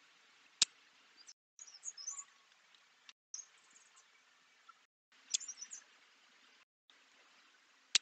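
Wild birds chirping and twittering in short, high, quick bursts over a faint steady hiss, sped up and chopped into short pieces with brief silent gaps. Three sharp clicks stand out, about half a second in, past the middle and at the very end.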